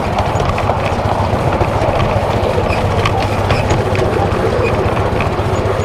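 A 7¼-inch gauge miniature steam locomotive running along the track, with a steady running noise and scattered clicks of the wheels on the rails.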